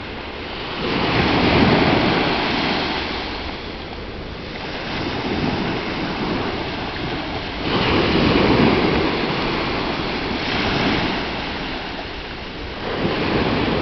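Small sea waves breaking and washing up a sandy shore, the surf rising and falling in five swells about every three seconds.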